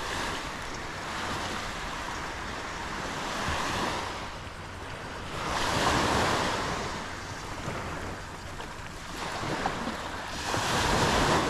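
Small surf waves breaking and washing up a sandy beach, swelling and easing in slow surges, loudest about six seconds in and again near the end, with wind rumbling on the microphone.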